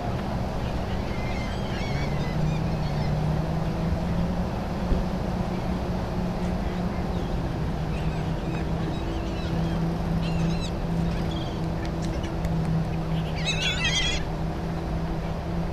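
A steady low engine hum with birds chirping over it now and then, a short busy burst of chirps near the end.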